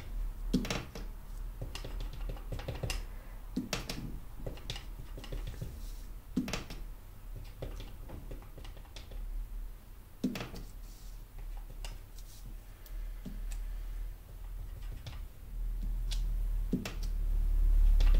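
Wood-mounted rubber stamp tapped on small plastic ink pads and pressed onto paper planner pages: scattered light taps and clicks every second or few. A low hum grows louder near the end.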